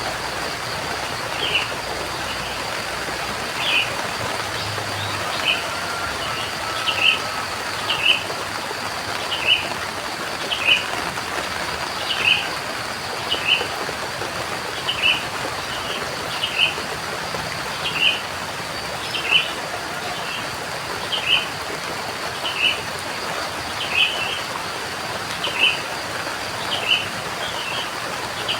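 Steady rain with a bird repeating one short, high chirp about every second and a half.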